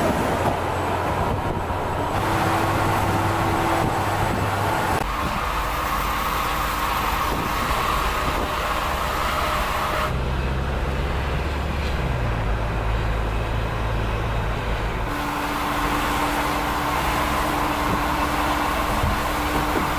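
Mercedes-Benz GenH2 hydrogen fuel-cell truck driving on the road: steady tyre and road noise with humming tones, the sound changing abruptly every few seconds.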